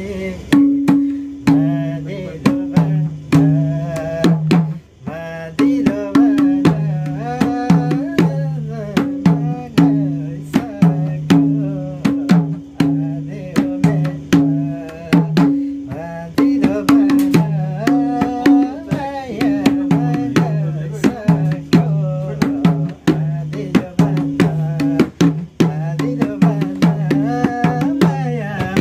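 Madal, the Nepali two-headed hand drum, played in a steady rhythm: crisp slaps alternate with ringing low and higher pitched strokes from its two heads.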